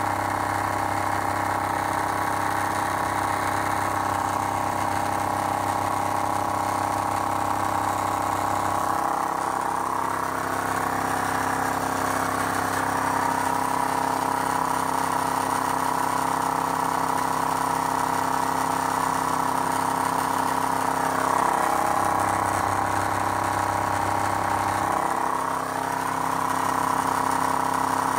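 RIX SA-3E oil-less electric scuba compressor running steadily while it builds pressure through its moisture towers and back pressure regulators. Its low hum drops away about a third of the way in and again near the end.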